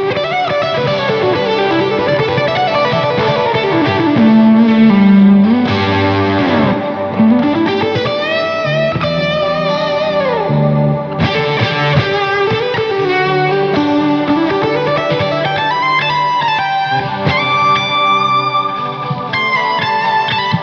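Electric guitar played through an SSD 90 Fuzz pedal: a fuzz-distorted lead line with many sliding pitch glides and long sustained notes over lower held notes.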